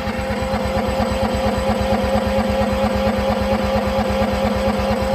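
Honda EU6500 generator's engine being cranked by its electric starter in deep cold, a steady whine with even pulses of about eight or nine a second, without catching: it fails to start at −12 °F.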